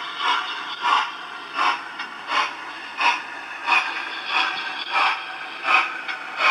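Model locomotive's sound decoder playing through its small loudspeaker: a steady, even beat of short hissing puffs, about three every two seconds.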